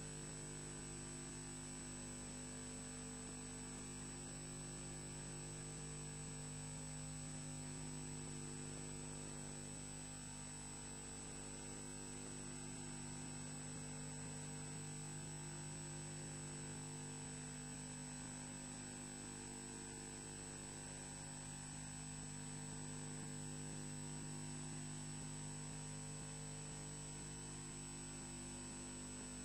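Steady electrical hum with a thin high whine and a faint hiss, unchanging throughout: the noise of the nest camera's own audio electronics, with no bird calls.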